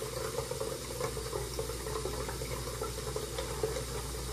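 A faucet running steadily into a sink while dishes are washed, with a few faint clicks.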